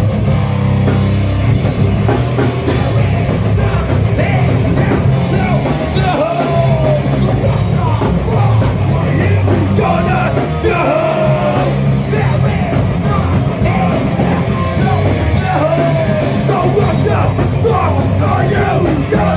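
Rock band playing loudly, with a full low end under a melody line that slides up and down in pitch.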